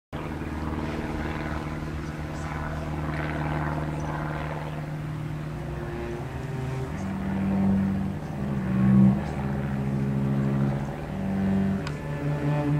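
Cello playing: a steady low drone of held notes at first, then from about seven seconds in louder bowed notes that change pitch every second or so.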